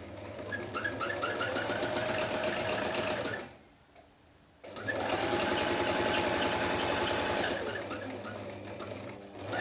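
Electric sewing machine stitching fabric: it runs for about three seconds, stops for about a second, then runs again for about five seconds.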